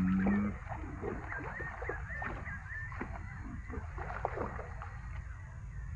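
Wind rumbling on the microphone, with scattered clicks and light splashing as a hooked snakehead is played on a baitcasting rod, and a small bird chirping several times between about one and three seconds in.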